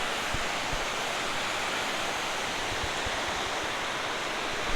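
Water pouring over a river spillway: a steady, even rushing hiss, with a few faint low knocks.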